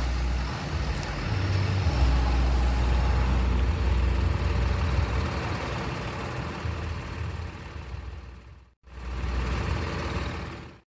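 Heavy diesel trucks of an asphalt recycling train running slowly: a steady, deep engine drone with mechanical noise over it. The sound breaks off sharply near the end, comes back briefly, then stops.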